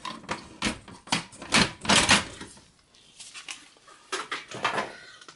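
A desktop power supply unit being handled as it is lifted out of a small form factor PC case and put aside: a string of knocks and clatter of metal housing against chassis, loudest in the first two seconds, then a few fainter taps.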